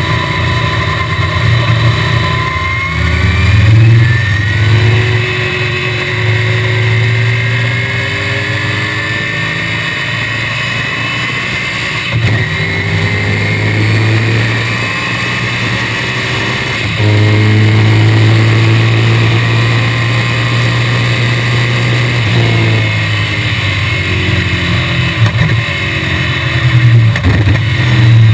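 1965 BTM Cheetah roadster's small-block Chevrolet V8 under hard acceleration, heard from the open cockpit: the engine revs climb, drop sharply at upshifts about 4, 12 and 17 seconds in, and climb again, running louder and higher after the last shift. The revs change in several quick steps in the last few seconds.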